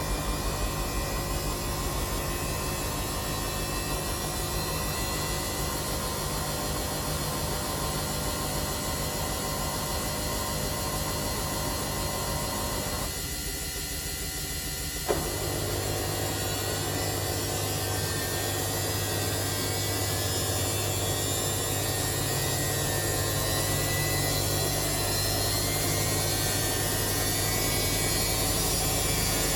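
Samsung washing machine running mid-cycle on a darks 40°C wash: a steady machine hum with a hiss over it. About 13 seconds in the low hum drops away for two seconds, then a sharp click and the hum comes back lower and stronger.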